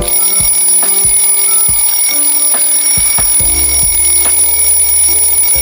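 Background music with a steady beat and a continuous shrill electronic tone, like an alarm ringing, held over it; a bass line comes in about halfway through.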